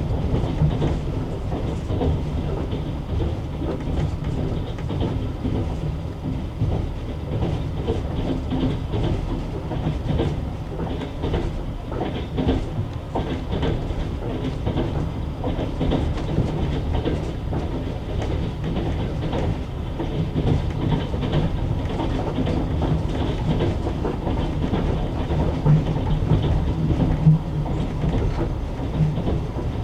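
Passenger train carriage running along the track: a steady rumble of wheels on rails with the clickety-clack of wheels over rail joints, and a couple of sharper knocks near the end.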